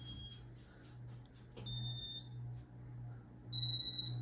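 Ceiling fan's remote-control receiver beeping three times, short high electronic beeps about a second and a half apart, each acknowledging a button press as the fan is set to high speed. A low hum runs underneath.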